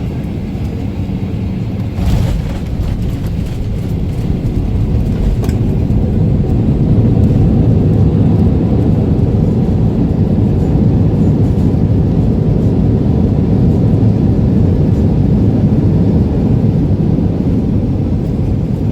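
Jet airliner landing, heard from inside the cabin: a steady low rumble of engine and air noise, a brief thump about two seconds in, then the rumble grows louder from about six seconds in and holds.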